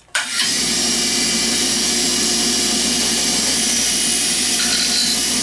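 A 6-inch, 3450 rpm bench grinder fitted with a Scotch-Brite wheel, running steadily with a hum and a high whine, as a 303 stainless steel shaft is held to the wheel to deburr and polish it. The sound starts abruptly just after the start.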